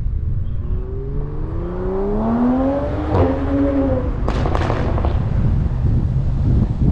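Toyota Supra's B58 turbocharged straight-six accelerating hard, its pitch climbing steadily for a couple of seconds and holding briefly. A quick burst of sharp exhaust pops and crackles follows about four seconds in.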